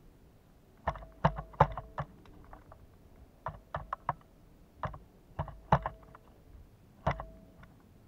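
Pileated woodpecker pecking at a block of suet in a wire suet cage: irregular clusters of sharp taps and knocks, a few of them followed by a short ringing tone.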